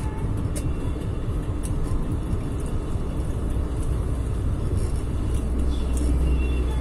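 Road and engine noise from inside a moving car on a highway: a steady low rumble, growing louder in the last second or two as a truck is passed alongside.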